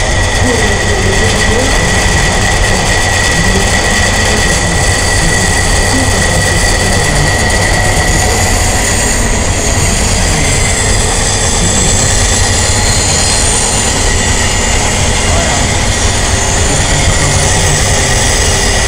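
Old belt-driven log sawmill and its drive machinery running at a show: a loud, steady mechanical clatter and rumble with a thin, steady whine over it.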